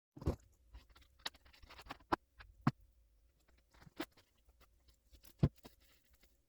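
Scattered light clicks and taps of handling the sealant tube and small parts at the workbench, irregular, with a sharper tap about five and a half seconds in, over a faint steady hum.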